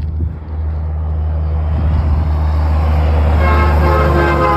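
Semi truck approaching with a steady low rumble and a growing rush of road noise, then its air horn sounding one steady blast of about a second and a half, starting about three and a half seconds in.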